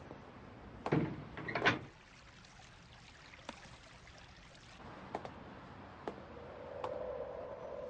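Phone-booth door pushed open, two short knocks from it about a second in, followed by a few faint sharp taps. Near the end a steady low tone sets in.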